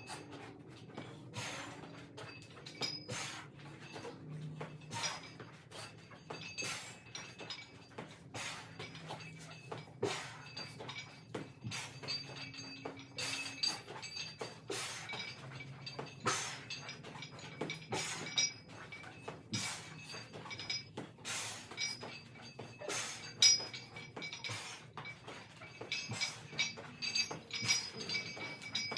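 Repeated light metallic clinks and clicks, about one or two a second at uneven spacing, some leaving a brief ringing tone.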